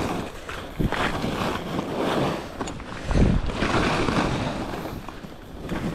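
Skis swishing through chopped-up, ungroomed fresh snow, the noise swelling and fading with each turn about once a second, with wind buffeting the microphone, strongest about three seconds in.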